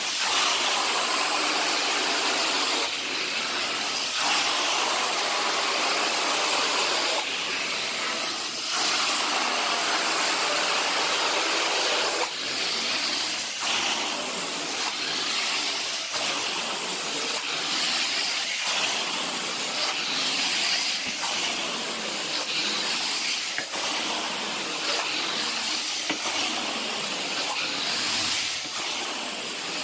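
Carpet extraction wand spraying and vacuuming across carpet: a steady rushing hiss of suction that swells and dips as the wand is pulled across the carpet in strokes.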